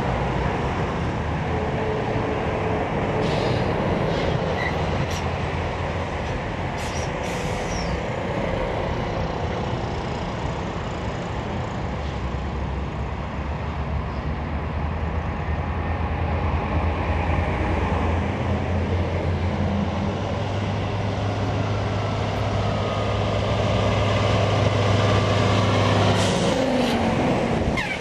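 Heavy diesel lorries passing close by: a steady engine drone with tyre noise. Near the end a deeper engine note builds as another lorry comes nearer.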